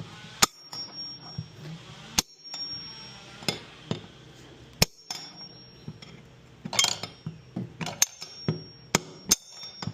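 Hammer blows on a metal tool set against a Samsung front-load washer's worn drum bearing, knocking the bearing out. About a dozen sharp metal-on-metal strikes at an irregular pace, several with a brief high ring.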